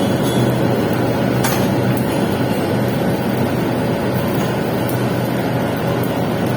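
A welding arc running steadily during a pipe capping pass, with a constant electrical hum under it.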